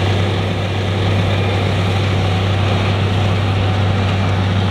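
Tractor engine running steadily as it pulls a seed drill across a field, a constant low hum with rushing noise above it.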